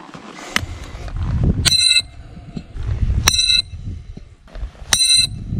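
A steel bolo knife blade striking a brick three times, about a second and a half apart; each blow is a sharp hit followed by a short, bright, bell-like metallic ring.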